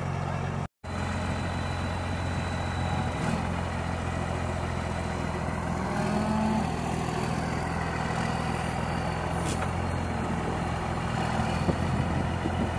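A vehicle engine running steadily with a low hum. The sound cuts out completely for a moment just under a second in.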